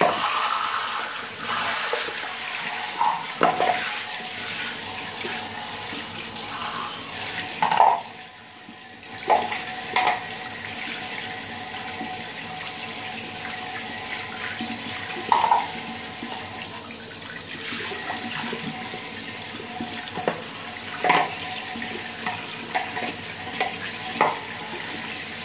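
Handheld shower head spraying water steadily onto a plastic floor-drain trap and into the open bathroom floor drain, with a few light knocks as the wet plastic trap parts are handled. The spray drops away briefly about eight seconds in.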